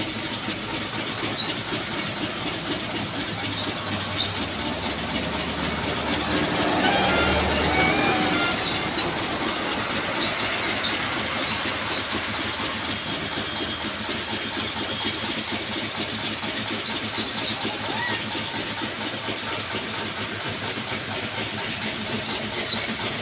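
A steady, loud rumbling and clattering noise that swells for a few seconds near the middle.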